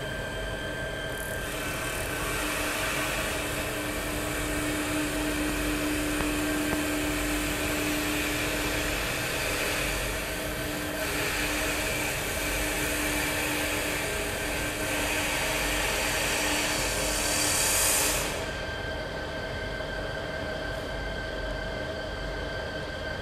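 CNC wood lathe turning a wooden furniture leg: the cutters shave the spinning blank with a loud, steady hiss over the hum of the machine's motors. The cutting noise starts about a second in and stops about three quarters of the way through, leaving the machine humming.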